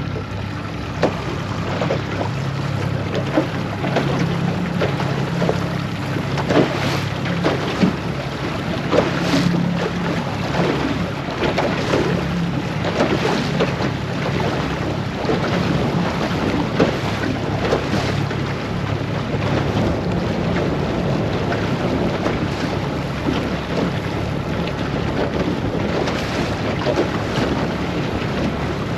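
Small fishing boat's motor running steadily at low speed, its pitch shifting a little in the first dozen seconds, with wind rushing on the microphone and short splashes and knocks of water on the hull.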